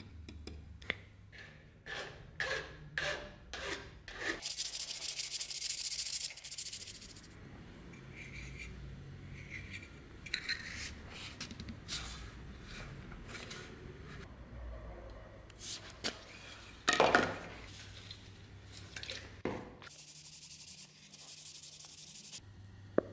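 Hand-work on small metal and wooden dagger-handle parts: a run of short rubbing strokes, about two a second, in the first few seconds, then stretches of high hiss and scattered scrapes and knocks, with a sharp click near the end.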